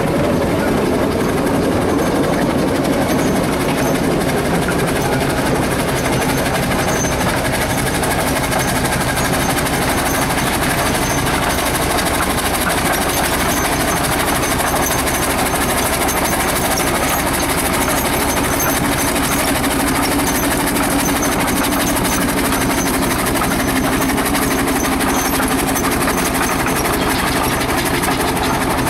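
Steam road vehicle running at a steady, unbroken level, with a dense mechanical noise and a few steady low tones underneath.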